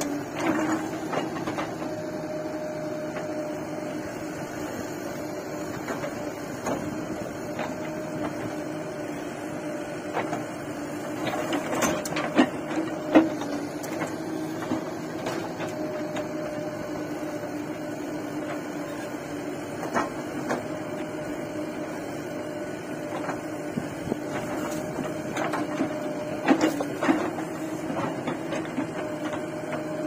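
Diesel engine of a JCB 3DX backhoe loader running at a steady speed, with scattered knocks and clanks, a cluster about twelve seconds in and another near the end.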